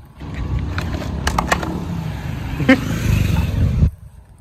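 Cardboard box flap being torn open and a plastic-wrapped motorcycle mirror pulled out: crackling and clicking of packaging, several sharp clicks about a second in and a short squeak near the middle, over a steady low rumble that stops suddenly near the end.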